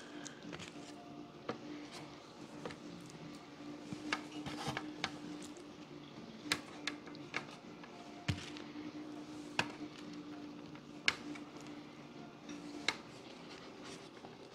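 Disposable aluminium foil baking pan crinkling and clicking in sharp, irregular taps as raw crappie fillets are pressed into it by hand. A steady low hum runs underneath and stops near the end.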